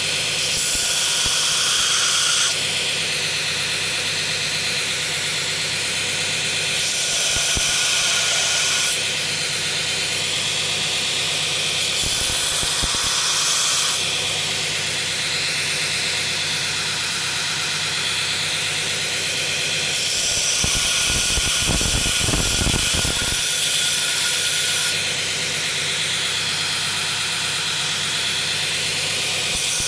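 Belt grinder running with a worn 36-grit belt. The steel knife blade is pressed to the belt in about five passes, each lasting two to five seconds and each raising a louder grinding hiss, as the sharp corners are taken off the blade's edge.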